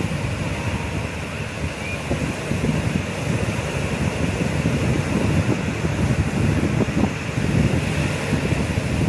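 Wind blowing on the microphone in low, gusty rumbles over the steady wash of small sea waves breaking onto a sandy beach.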